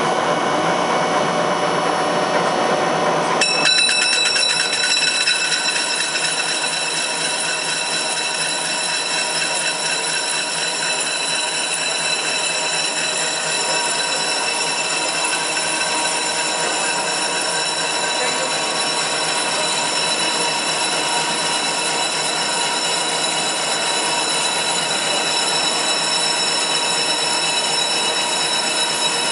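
Tezsan Doruk CNC lathe running, with a steady mechanical whine of several high, constant tones. A little over three seconds in, the sound switches abruptly from a rougher noise to this steady whine.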